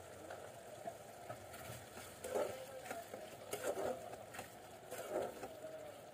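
Metal spatula stirring thick beef curry in a karahi pan, a few scraping strokes between about two and five seconds in, over the soft bubbling of the simmering gravy.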